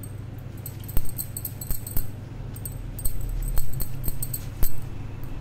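Hands rolling dough balls and setting them on a wooden board, with bangles on the wrist clinking and several sharp knocks, five or so, over a steady low hum.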